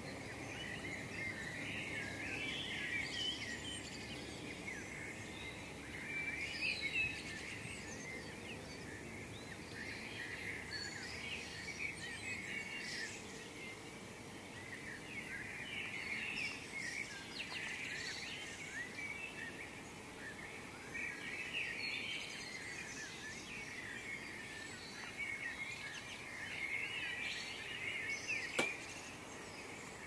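Spring dawn chorus: many songbirds singing over one another in a dense, continuous stream of short high notes. A single sharp click sounds near the end.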